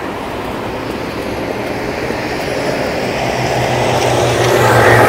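Motor vehicle drawing closer on a city street: its engine and road noise grow steadily louder, and a low engine hum comes up strongly in the last two seconds.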